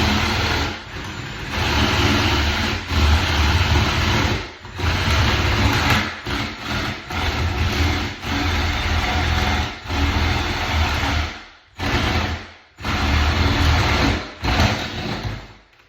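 Power drill boring a 1-inch paddle bit into the edge of a wooden door for the latch hole. It runs loudly in several long bursts with short pauses between them.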